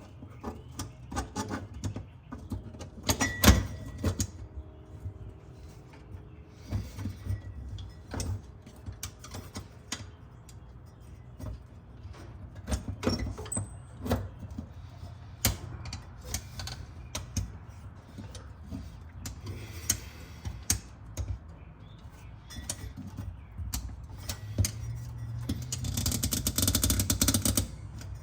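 Hand tools clicking, knocking and rattling against metal parts of a car's fuel line in irregular bursts, with a louder stretch of rasping and scraping near the end.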